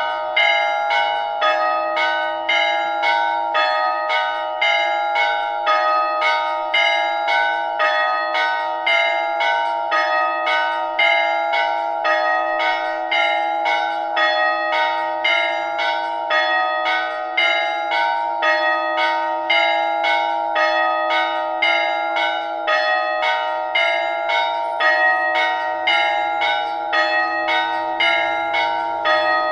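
A ring of village church bells pealing, the bells struck one after another in a quick, even rhythm, their tones overlapping and ringing on.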